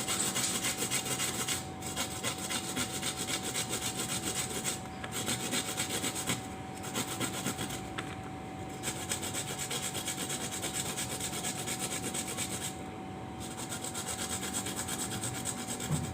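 Kencur (aromatic ginger) rhizome being grated by hand on a grater: quick, even back-and-forth scraping strokes with a few short pauses.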